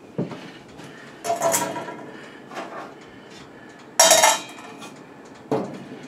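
Metal objects clinking and clattering, with a ringing clatter about a second and a half in and one loud bright clank about four seconds in.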